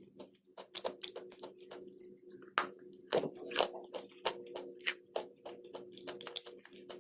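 Close-up biting and chewing of crunchy chalk and clay: a quick, irregular run of sharp crunches, several loud bites near the middle.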